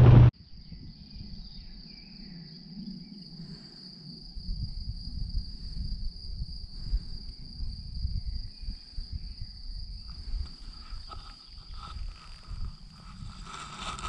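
A steady, high-pitched cricket-like insect trill, held throughout, over low wind rumble on the microphone. It opens with a split second of loud driving noise that cuts off abruptly.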